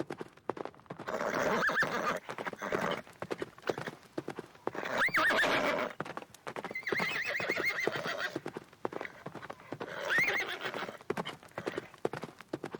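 An animal giving four loud, quavering calls, with a steady patter of sharp clicks underneath throughout.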